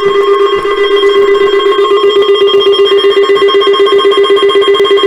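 Weather radio's test alarm: a loud, steady electronic tone pulsing several times a second, with higher steady tones sounding over it.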